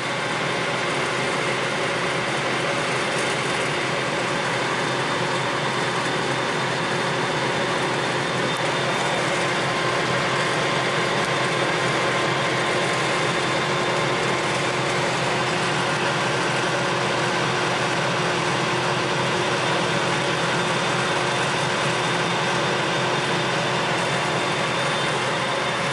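Clausing Colchester Master 2500 engine lathe running under power with the carriage feeding along the bed: a steady machine hum from the headstock and feed gearing with several faint steady whining tones over it.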